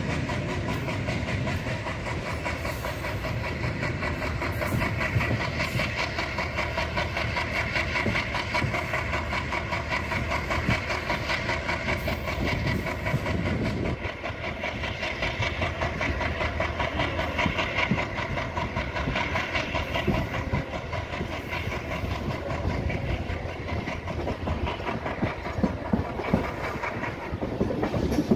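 Passenger coach of a diesel-hauled express running at speed, heard from the open door: a steady rumble and clatter of wheels on the track, with rushing air. It is slightly louder in the first half, while running alongside a line of container wagons, and eases a little about halfway through once past them.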